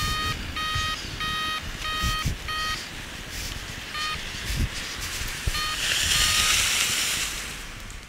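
An electronic device beeping: about six short, even-pitched beeps in the first three seconds, then one more about four seconds in and a quick pair about five and a half seconds in. A rushing, hissing noise swells up near the end.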